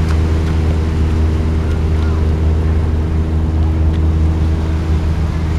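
A steady, low engine hum with a constant pitch, unchanging throughout.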